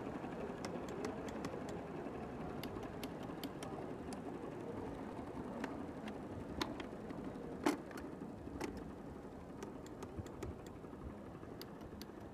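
Small electromagnetic solenoids clicking irregularly as they actuate on demonstration rigs, a few sharp clicks a second, with one louder click about two thirds of the way through. Under them runs a steady background din.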